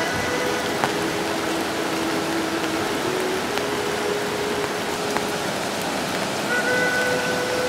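Stream water rushing steadily through the weir opening where the Toplitzbach flows out of the lake, a dense, even rush.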